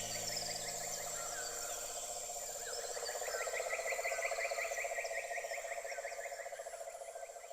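A nature soundscape of frogs, insects and birds: a fast pulsing frog-like trill, a steady high insect buzz and scattered short bird chirps, with a quick run of repeated chirps. It swells about three seconds in and fades out near the end.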